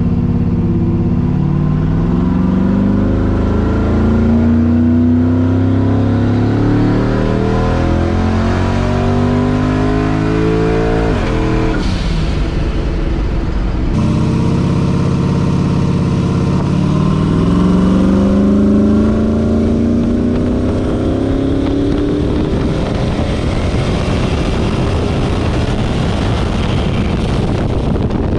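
Turbocharged 5.3-litre V8 car accelerating hard, its engine note climbing steadily in pitch. About eleven seconds in, the pitch falls sharply, then it climbs again through a second long pull and levels off near the end.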